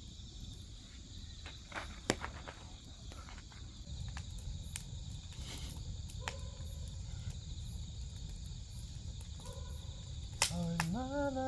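Grass insects such as crickets chirring steadily, with firewood crackling in a fire and giving a few sharp pops. About a second before the end a person starts humming a tune.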